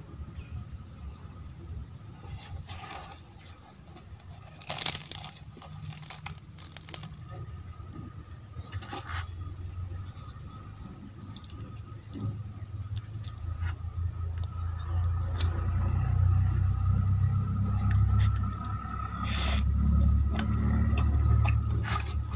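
Hands tearing and breaking crisp deep-fried aloo kachoris: rustling and crackling of fried pastry, with sharp crackles several times, loudest about five seconds in. A low rumble builds through the second half.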